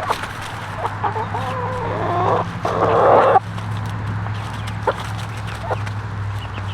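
Backyard hens clucking with wavering calls, then a louder harsh squawk near the middle, followed by a few sharp clicks. A steady low hum runs underneath.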